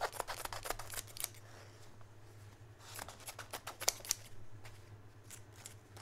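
Leatherman Raptor trauma shears cutting through a jeans leg: a quick run of crisp snips in the first second or so, a short lull, then a few scattered snips again about three seconds in.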